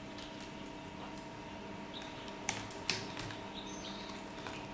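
Two sharp plastic clicks about half a second apart, a little past the middle, as fingers work at the edge of a tablet's plastic frame during disassembly. They sit over a steady low hum, with a few faint high chirps.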